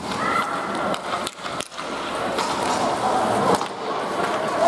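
Hockey skates scraping and carving on the ice rink during play, with a few sharp knocks mixed in.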